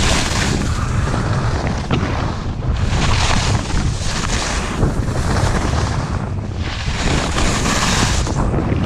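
Skis hissing and scraping across packed snow in linked turns, one surge of hiss roughly every two seconds, over heavy wind buffeting the microphone from the speed of the descent.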